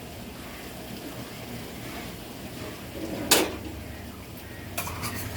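A low steady hum with one sharp knock about three seconds in and a few lighter clicks near the end.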